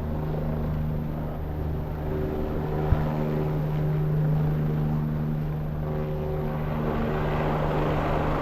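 Police helicopter hovering overhead, its rotor and engine making a steady drone with an even hum. A single sharp click about three seconds in.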